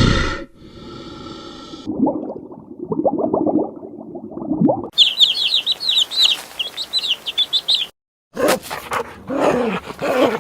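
A run of separate animal sound clips joined by hard cuts. A chicken clucks rapidly in the middle of the run, then a small songbird chirps in quick high trills for about three seconds. Near the end, after a short gap, comes another animal's run of lower calls.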